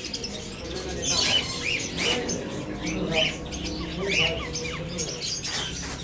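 Many caged birds chirping and squawking in short, quickly repeated calls, with lower calls beneath them.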